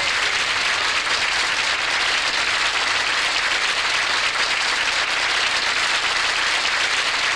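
Audience applauding steadily, with no music playing.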